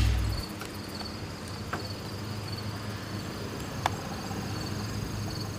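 Crickets chirping, a steady pulsing trill, with a few sharp clicks, the loudest about four seconds in. The tail of a music track dies away at the very start.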